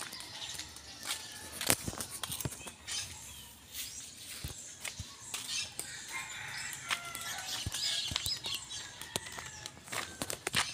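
Outdoor ambience while walking with a phone in hand: scattered clicks and rustles of handling and footsteps, with faint bird calls, thickest in the middle of the stretch.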